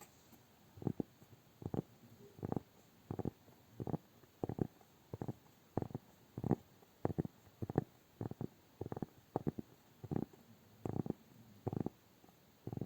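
Close-miked ASMR hand sounds: a fairly even run of soft, muffled, squishy pats, about three every two seconds.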